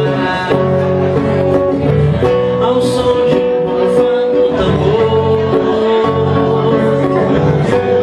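A man singing live, accompanying himself on a classical guitar.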